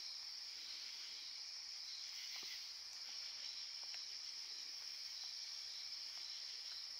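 A steady, high-pitched chorus of crickets and other night insects, with a couple of faint clicks.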